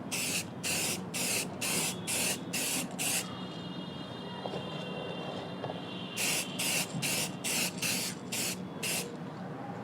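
Aerosol can of Bosny black gloss spray paint sprayed in short, quick bursts, about three a second, laying down a thin coat. The bursts stop for about three seconds midway, then start again.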